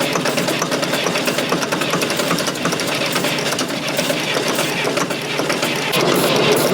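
Fordson Super Major's 3.6 L four-cylinder diesel being cranked over on the starter, a fast steady mechanical churning, without catching: the cold engine is stubborn to start. It gets slightly louder near the end.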